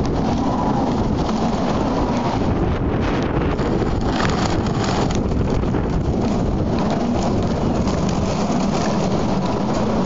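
Typhoon storm wind blowing hard and steadily, rumbling on the microphone, with rain.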